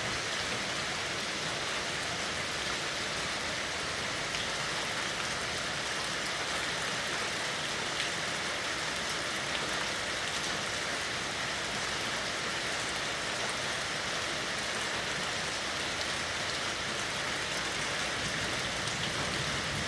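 Steady rain falling, a dense even patter of drops with faint scattered ticks of individual drops.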